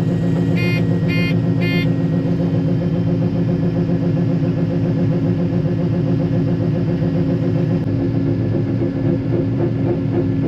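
Combine harvester running steadily, a constant engine and machinery hum, with three short electronic beeps about half a second apart near the start.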